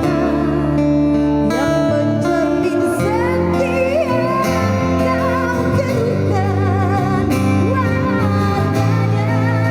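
Live band music: guitar and bass playing steadily, with a woman's voice coming in about three seconds in and holding long notes with strong vibrato.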